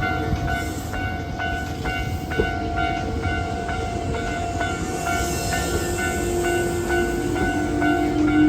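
Hankyu Itami Line train running over a level crossing on a tight curve, with a steady rumble. Over it, a repeating ringing tone, typical of the crossing's warning bell, goes on throughout, and a hiss rises about five seconds in.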